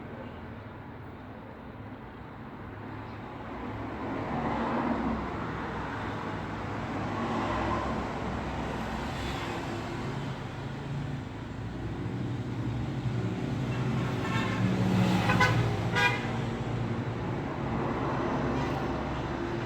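Road traffic: vehicles passing one after another over a steady wash of tyre and engine noise, with a low engine drone swelling in the second half. Late on, a vehicle horn toots briefly.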